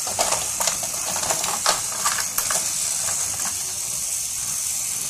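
Battery-powered toy train running along plastic track: a steady high whir with irregular small clicks and clacks of the plastic wheels and track.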